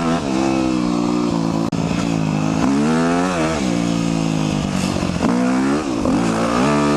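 Dirt bike engine being ridden off-road, revving up and down repeatedly as the throttle opens and closes. There is a split-second drop in the sound just under two seconds in.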